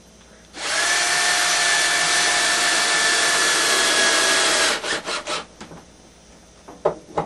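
A loud, steady whirring noise lasting about four seconds that stops abruptly, then a few short scraping strokes of a hand file on the steel of an axe bevel.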